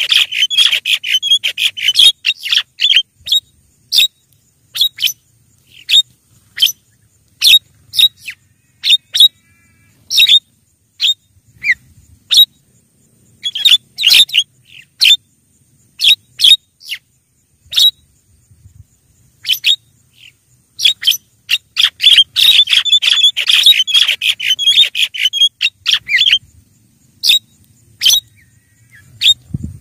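Javan myna (jalak kebo) calls: short, sharp, harsh notes in quick chattering runs near the start and again about three-quarters of the way through, with single calls scattered between.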